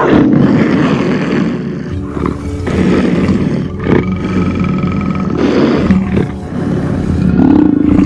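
A big cat, billed as a black panther, roaring several times over background music.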